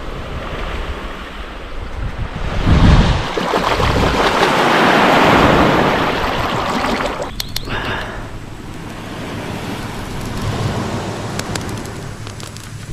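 Small waves washing on the shore and wind buffeting the microphone. The sound swells around the middle, with water splashing as a fish is rinsed by hand in the shallows.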